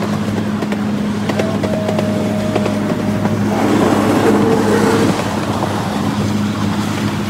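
Small engine of a miniature park train running at a steady low drone, heard while riding aboard, with a faint thin whine lasting a couple of seconds about a second and a half in.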